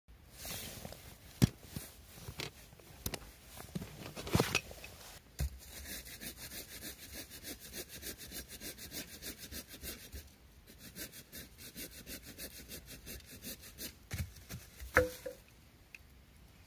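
Hand saw cutting wood in quick, rhythmic back-and-forth strokes, several a second, for about ten seconds, ending with a knock. Before the sawing starts there are irregular knocks and rustling of handling.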